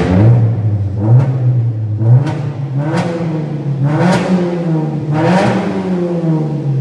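Alfa Romeo 147 Ti four-cylinder engine, breathing through a stainless four-into-one manifold, a 200-cell sports catalytic converter and a stainless cat-back exhaust, revved in about five quick throttle blips, its pitch rising and falling with each.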